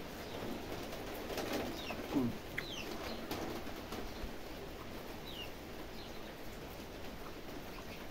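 Close-up eating sounds of a mouthful of mutton curry and rice being chewed, with birds chirping in the background, several short high falling chirps.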